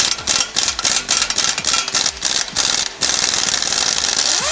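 Pneumatic impact wrench loosening a 5/8 bolt on a Jeep steering box mount. It hammers in rapid stuttering bursts for about three seconds, then runs steadily, and winds down in pitch near the end as the trigger is released.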